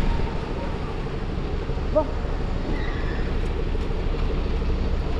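Rainy city street ambience: a steady low rumble of traffic and wind on the microphone under a light hiss of rain, with one short sharp sound about two seconds in.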